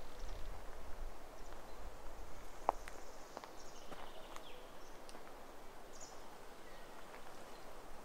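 Forest ambience: scattered bird chirps and short calls over a steady outdoor hiss, with a few sharp clicks, the loudest a short sharp sound about two and a half seconds in.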